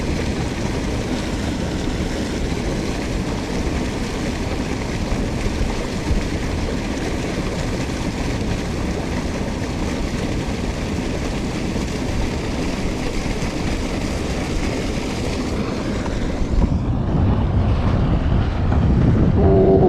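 Steady wind buffeting the microphone over the wash of small waves breaking on a rock breakwater, an even rumble with a hiss above it. About sixteen seconds in the hiss drops away and the rumble carries on.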